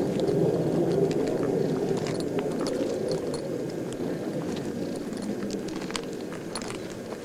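Footsteps crunching and scraping on loose, sharp stony ground as people walk down a desert slope, with scattered clicks of stones, over a steady rushing noise that slowly fades.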